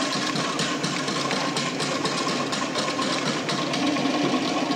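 Tahitian drum ensemble beating a fast, steady rhythm of sharp strikes, about four to five a second, the drumming that drives a Tahitian hip-shaking group dance.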